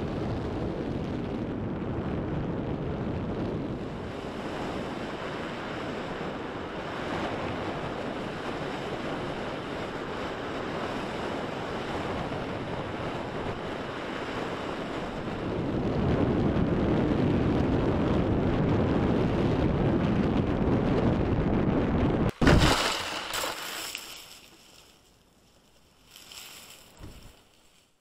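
Wind rushing over the onboard camera of an X-Models Whisper slope-soaring glider in flight, growing louder partway through. About 22 seconds in a sharp knock cuts in as the glider comes down in the grass, and the rush dies away to faint noise with a few small bumps.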